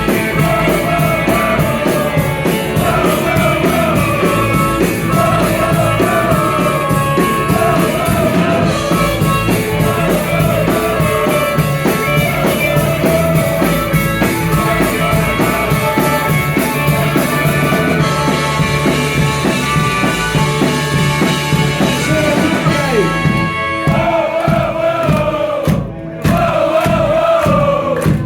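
Live rock band playing a song at full volume: guitars, bass and drums under a sung melody line. Near the end the band thins out and the sound drops out for a moment.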